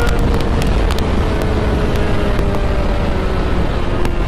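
Sport motorcycle engine at high speed, its note slowly dropping in pitch as the bike slows, mixed with heavy wind rush on the rider's microphone.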